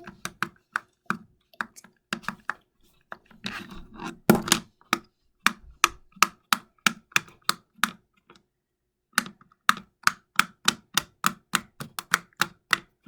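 Silicone bubbles of a heart-shaped pop-it fidget toy being pushed through one after another, each giving a sharp pop, about two to three a second, with a short pause about eight seconds in.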